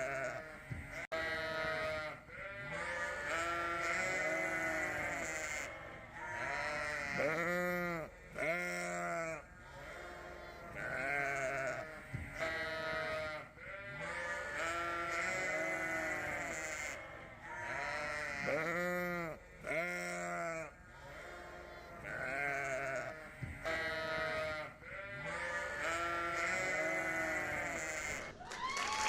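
A group of sheep bleating over and over, calls overlapping one another, each bleat about a second long with brief lulls between bursts.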